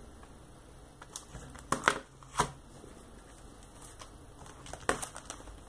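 Plastic CD jewel case handled and turned over on a tabletop, making a few sharp clicks and taps: two about two seconds in and two more near the end.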